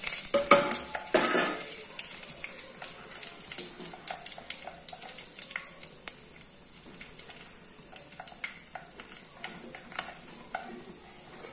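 Fenugreek and cumin seeds crackling and sizzling in hot oil in a clay pot: scattered sharp pops over a steady hiss. There is louder clatter in the first second and a half as the cumin goes in.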